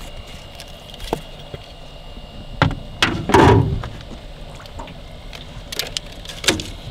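Handling sounds of a red disc fishing jug being drawn to a small metal boat and lifted out of the lake: a few sharp knocks, and about halfway through a louder thump with splashing as the dripping jug comes out of the water.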